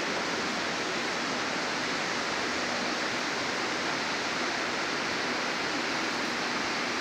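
Whitewater rapids of a wide river rushing, heard as a steady, even hiss of water.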